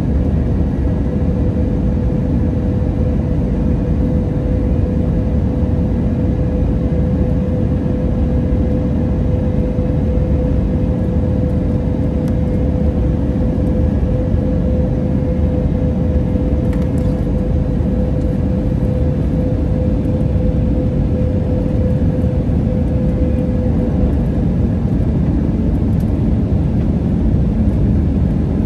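Airbus A320neo passenger cabin on final approach: steady engine and airflow noise with a steady humming tone that fades out a few seconds before the end, as the jet comes down over the runway just before touchdown.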